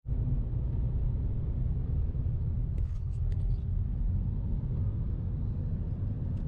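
Car driving at highway speed, heard from inside the cabin: a steady low rumble of road and engine noise, with a few faint clicks about halfway through.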